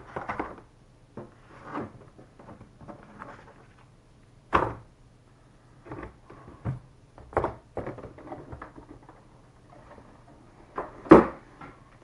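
Cardboard box and packaging handled as a keyboard is worked out of it: scattered rustles and light knocks, with two sharper thumps, one about four and a half seconds in and a louder one near the end.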